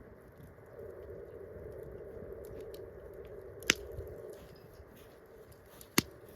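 Wood campfire crackling softly, with two sharp, loud pops from the burning wood, one a little past halfway and one near the end.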